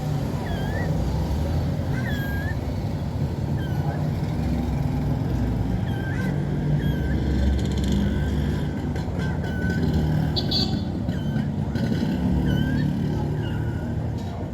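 Kittens mewing over and over, short high mews about every second, over a steady low rumble like traffic.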